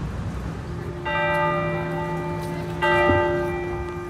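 A bell struck twice, a little under two seconds apart, each strike ringing on and fading away, over a steady low hum.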